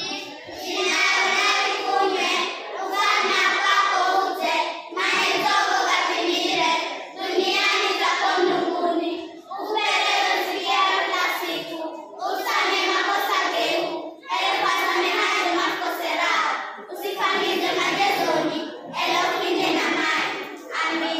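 A group of children singing together in unison, in repeated short phrases of about two seconds each with brief pauses between them.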